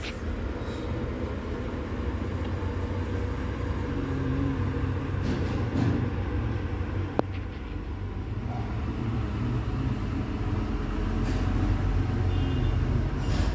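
Steady low background rumble, with one sharp click about seven seconds in.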